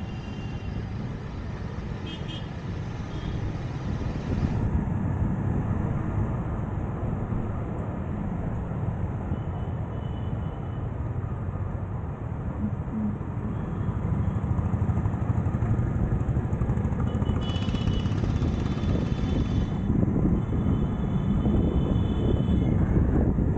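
Road traffic heard from a moving vehicle: a steady rumble of engines and tyres that grows gradually louder. Short high-pitched tones break in several times, longest in the last third.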